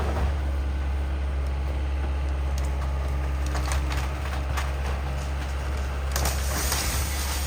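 Demolition work: a heavy machine's engine running steadily, with scattered knocks and a burst of crunching, splintering debris about six seconds in.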